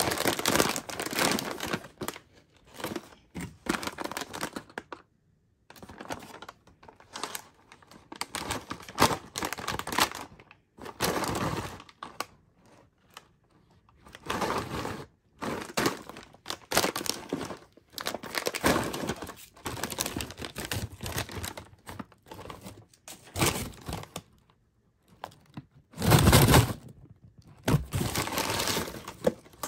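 Foil-lined tempura seaweed snack bag crinkling as it is handled and opened, in irregular rustling bursts with short pauses. The loudest burst comes near the end.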